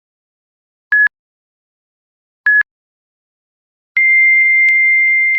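Electronic beeps: short single-pitch beeps about every one and a half seconds, then a longer, slightly higher steady tone starting about four seconds in that holds and begins to fade, with a few faint clicks over it.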